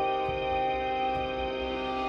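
Soft instrumental background music with long held notes.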